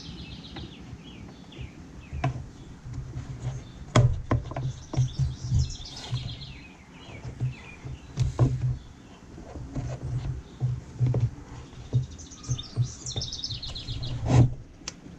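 Small birds chirping in the background, with scattered clicks and knocks from chainsaw parts being handled and fitted back together; the loudest knocks come about four seconds in and near the end.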